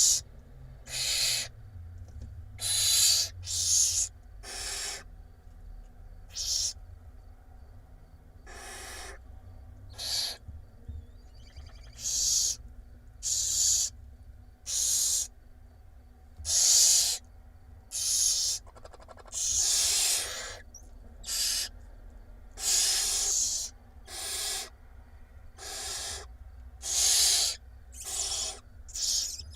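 Barn owl nestlings begging for food, giving a long irregular series of harsh, hissing rasps, each about half a second to a second long and coming every second or two.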